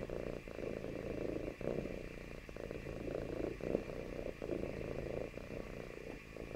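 Domestic cat purring steadily, close up, with a brief break about once a second as it switches breath.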